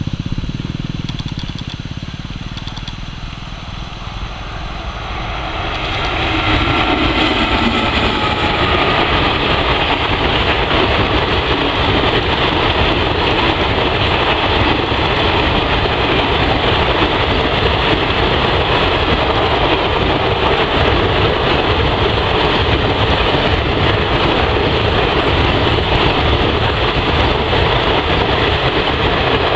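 Indian Railways WAP-4 electric locomotive and its passenger coaches passing at speed over a bridge. The sound swells about five seconds in as the train arrives, then holds as a steady, loud noise of wheels on rail.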